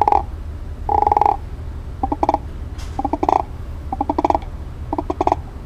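Homemade friction frog call, a wet rubber band stretched over a clear plastic tofu container and rubbed with a finger, making a deep bullfrog-like croak about six times, roughly once a second. The later croaks come out as a fast rattling pulse.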